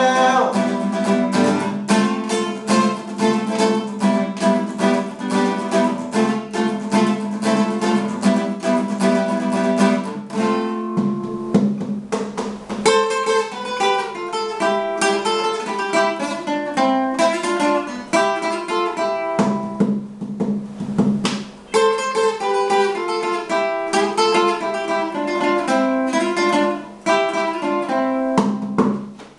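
Solo acoustic guitar with no voice: strummed chords for about ten seconds, then a picked melody of single notes, a short stretch of strumming in the middle, and more picked melody, stopping just before the end.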